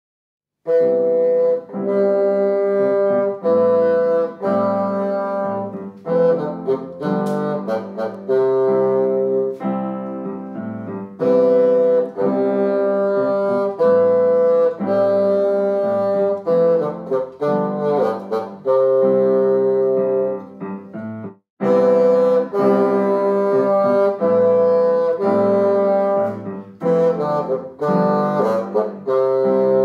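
Music: a bassoon playing a melody in short phrases over a piano accompaniment, broken by a brief gap about twenty-one seconds in.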